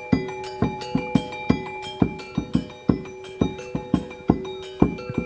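Music: held keyboard-like tones over sharp percussion strokes, several a second, in a lively rhythm.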